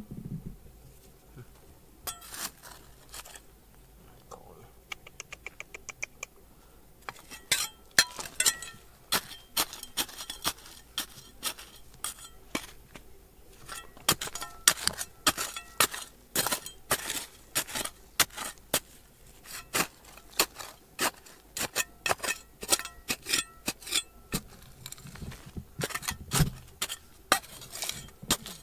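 Rapid, irregular clinks and knocks of hard objects striking one another. They are sparse for the first few seconds, with a quick run of light ticks about five seconds in, then come thick and fast from about seven seconds on.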